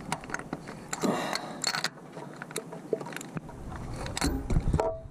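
Small ratcheting wrench turning a spark plug socket to back a spark plug out of an engine: scattered ratchet clicks and metal taps and scrapes, with a few heavier knocks near the end.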